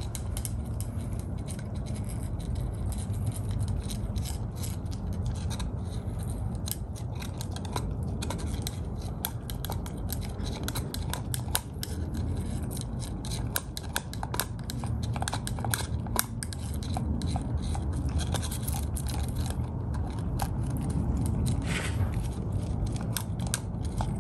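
Puppy gnawing a cooked lamb rib bone, with irregular sharp clicks and scrapes of teeth on bone. A steady low rumble runs underneath.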